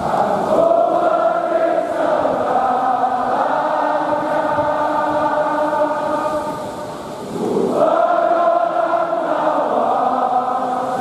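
A large crowd of football supporters singing a chant together in unison, in long held notes. The singing dips briefly about seven seconds in and then comes back at full strength.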